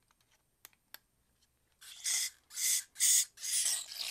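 Aerosol can of carburetor cleaner sprayed through a small-engine carburetor's fuel passage with an extension straw: a couple of light clicks, then about five short hissing bursts from about two seconds in. The passage is being tested and turns out clogged, so little cleaner comes through.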